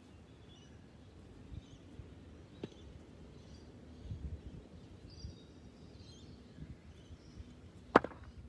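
A single sharp crack of a cricket ball striking the bat near the end, the loudest sound by far, over faint birdsong and low outdoor background noise.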